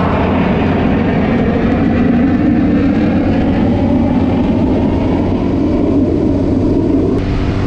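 Jet fighter flying overhead, a loud broad roar over the motorcycle's running engine and wind noise. The roar ends abruptly near the end.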